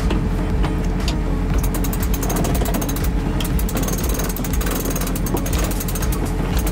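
Sailboat cockpit winch clicking rapidly as a line is hauled in, a fast run of pawl clicks starting about a second and a half in and again briefly near the end. Under it the boat's engine drones steadily.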